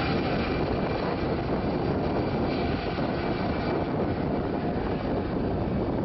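Jet airliner's engines running as the plane rolls along the runway: a steady, even rushing noise with a faint high whine.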